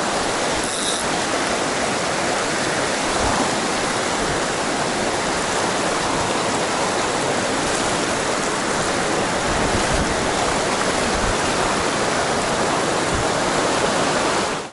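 Fast mountain stream rushing over rocks and riffles: a steady, loud rush of water that cuts off suddenly at the end.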